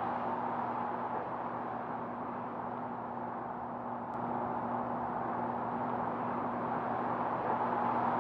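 Steady rush of flowing water, with a faint low hum under it.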